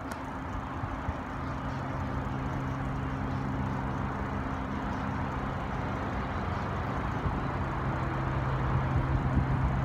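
BNSF diesel locomotive on an approaching grain train, a steady low engine hum that grows louder as it nears.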